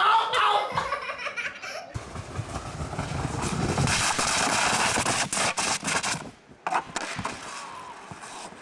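Brief laughing voices, then a kayak with a rider in it sliding down a long flight of concrete steps. The hull scrapes with a rough noise that builds for about four seconds, with rattling knocks near the bottom. A short thud follows, then fainter scraping as the kayak runs out onto the shore.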